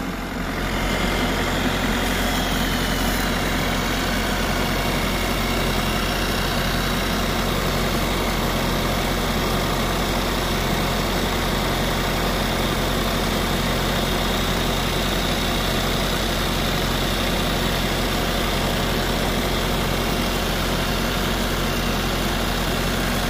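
Steady motor hum over the hiss of water spraying from a cordless washer gun onto an aluminium finned oil cooler, unchanging throughout.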